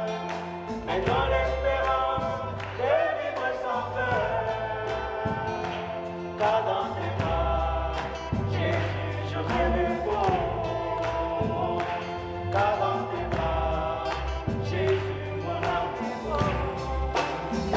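Live gospel song with a woman singing lead into a microphone and a man's voice alongside her, backed by electric guitar, drums and deep bass notes under a steady beat.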